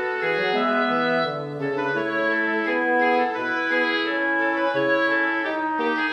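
Instrumental background music: a melody of held notes over sustained chords, changing pitch every half second to a second.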